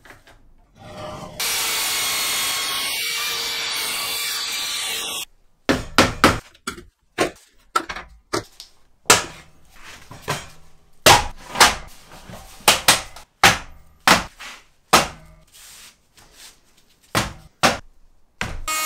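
A power tool spins up and runs steadily for about four seconds, then stops abruptly. After that, plywood boards are handled and set down, with a string of sharp wooden knocks and clunks.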